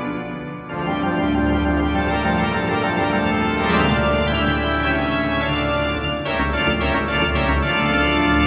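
Background music: held organ-like chords, with the upper notes chopping on and off rapidly for about a second and a half near the end.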